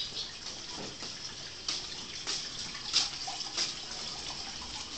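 Footsteps on a hard floor, about one every two-thirds of a second, over a steady hiss.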